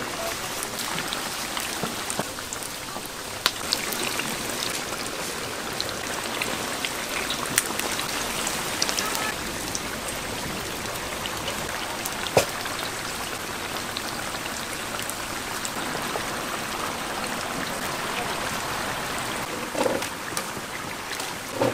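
Hot oil sizzling steadily in a deep fryer, with scattered pops and crackles.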